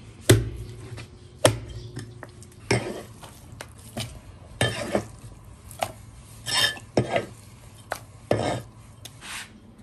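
Meat cleaver chopping through pork ribs on a plastic cutting board, then rib pieces being dropped into a glass bowl: a dozen or so irregular sharp knocks and clatters.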